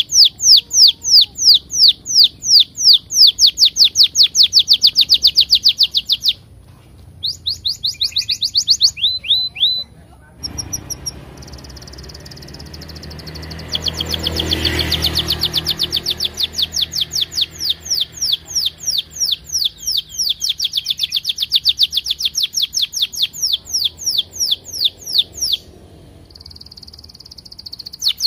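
Orange domestic canary singing a long song of rapid, evenly repeated falling chirps, about five a second. The song breaks off briefly twice and is interspersed with steady rolling trills, one near the end.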